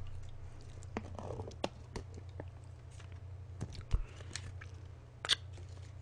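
Sparse light clicks and rustles of a small plastic food packet being handled and opened, over a steady low hum.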